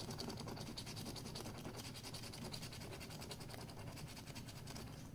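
A coin scratching the coating off a scratch-off lottery ticket in rapid, short back-and-forth strokes.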